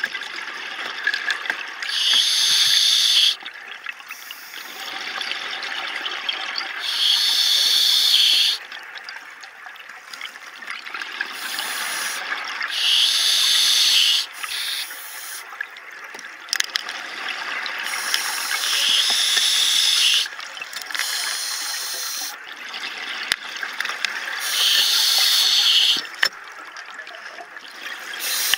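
Scuba diver breathing through an open-circuit regulator underwater: a loud rush of air and bubbles comes five times, about every five to six seconds, with a quieter hiss building between breaths.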